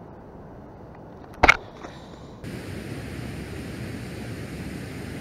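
One sharp knock about a second and a half in, over a faint background. About a second later the sound switches abruptly to a steady outdoor hiss of wind and water at the shore.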